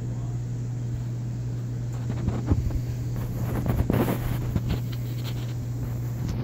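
Steady low electrical hum of aquarium pumps and filtration, with a few seconds of rustling and light knocks from the handheld phone being moved partway through.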